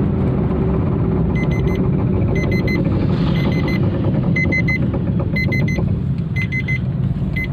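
Car's handbrake warning chime beeping in groups of three short beeps about once a second, starting about a second and a half in, over the steady rumble of the moving car heard from inside the cabin. The beeping is sounding because the handbrake was left pulled.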